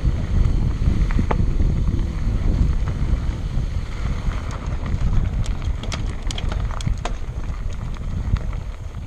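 Wind buffeting the microphone of a mountain bike rolling down a rocky dirt trail, with the low rumble of the tyres over the ground. About halfway through come a run of sharp clicks and rattles as the bike crosses loose stones.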